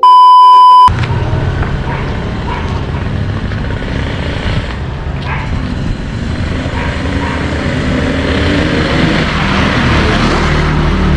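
A loud, steady beep lasting about a second, then a motorcycle engine running steadily while riding, growing a little louder toward the end.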